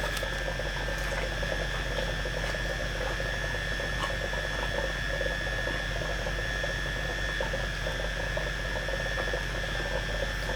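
Steady mechanical hum and hiss with a thin high whine running through it, unchanging throughout.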